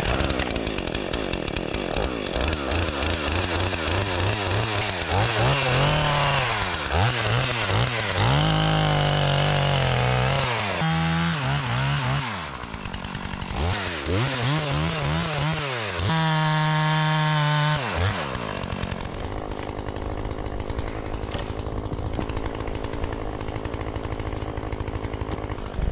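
Two-stroke chainsaw cutting through tree stumps near the ground, the engine revving up and falling back over several cuts, with one long full-throttle stretch. For the last several seconds it drops to a steady idle.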